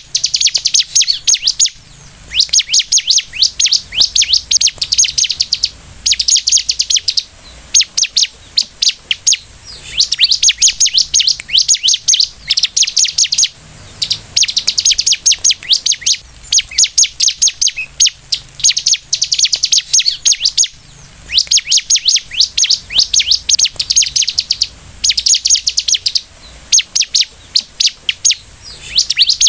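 Bar-winged prinia (ciblek) singing: rapid high-pitched chirping phrases of one to two seconds each, repeated over and over with short pauses between them.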